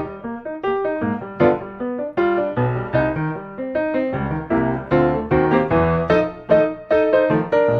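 Background piano music: a steady run of struck notes, each dying away before the next.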